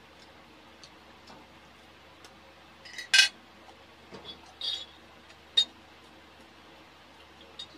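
Eating sounds: a fork clinking on a plate, with a few sharp clinks and knocks of a glass jar mug being picked up and handled, the loudest a little after three seconds in.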